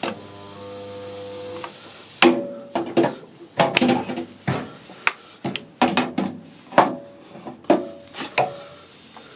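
Irregular sharp knocks and clatters of metal car-body parts being handled and fitted, a dozen or so over several seconds.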